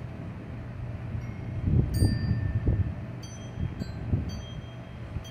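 Wind chimes ringing: a handful of scattered bright notes, the first about a second in, while a low rumble swells between about one and a half and three seconds in and again around four seconds.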